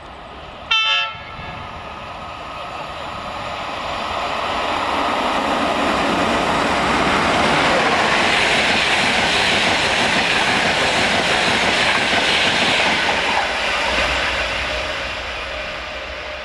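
A short horn blast about a second in, then a Class 91-hauled InterCity 225 express passing through the station at speed. The noise of the locomotive and coaches builds to a peak through the middle of the pass and fades near the end.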